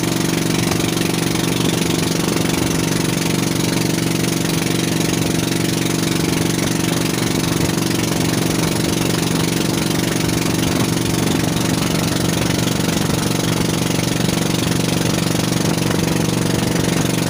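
Fishing boat's engine running steadily under way, an even drone with a constant hiss of wind and water over it.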